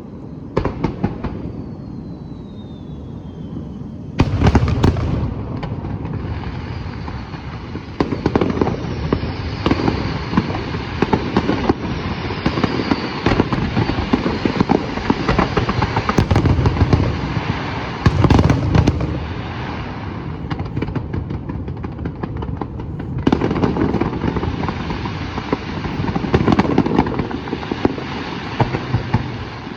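Fireworks display: a dense, continuous run of crackling and popping shell bursts, with heavier booms about four, eight, sixteen, eighteen and twenty-six seconds in. A falling whistle sounds about two seconds in.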